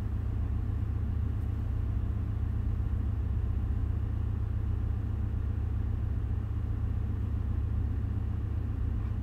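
Steady low drone of a ship's engine-room machinery running.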